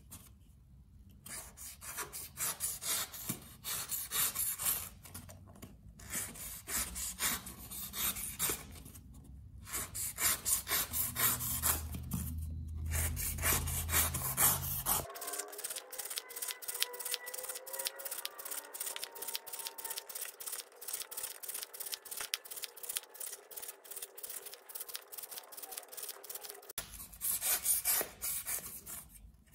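A Lion Tools 6590 folding pocket knife slicing through corrugated cardboard in repeated cuts across a strip during an edge test. The scraping strokes follow one another quickly.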